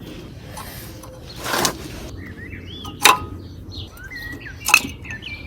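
Worn front brake pads being worked out of a Renault Clio MK3's caliper carrier: a short scrape about one and a half seconds in, then two sharp clinks, the second the loudest. Birds chirp in the background through the second half.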